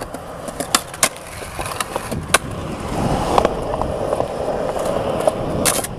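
Skateboard rolling on concrete, with a few sharp clacks of the board; the wheel rumble grows louder from about halfway through.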